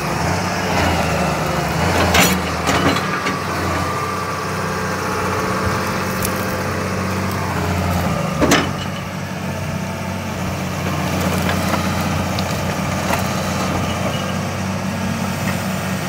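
Crawler excavator's diesel engine running steadily with a low hum, with a sharp knock about two seconds in and another louder one about eight seconds in. The machine has thrown one of its tracks.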